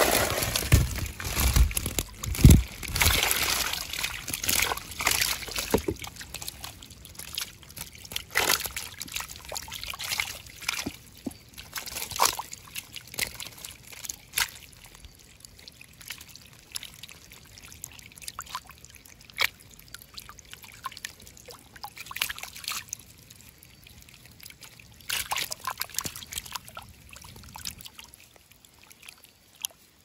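Water splashing and sloshing, heaviest in the first few seconds, then trickling, with scattered small splashes and clicks.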